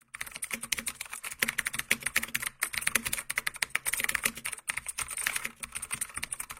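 Rapid typing on a keyboard: dense, quick clicking, broken by two brief pauses, about two and a half and four and a half seconds in.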